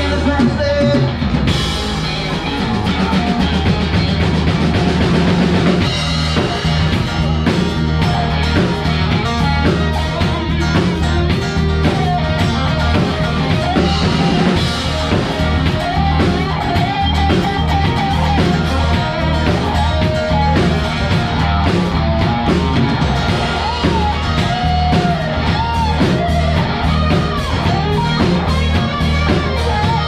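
Live rock band playing, with electric guitars, bass and a drum kit.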